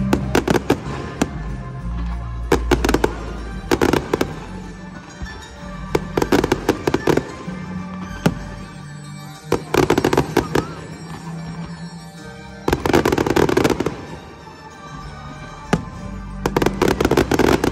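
Aerial firework shells bursting in clusters of sharp bangs and crackles, a fresh volley every two to three seconds, over the show's music soundtrack.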